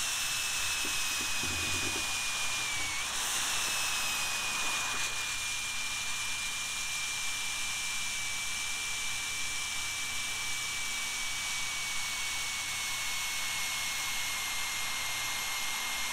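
Jet Central Rabbit model turbine jet engine running at part throttle: a steady hissing rush with a high whine that slowly falls in pitch, dipping and jumping back up about three seconds in. Its speed is wandering, from about 122,000 down to 99,000 rpm, the unsteadiness being tested as a surging fault.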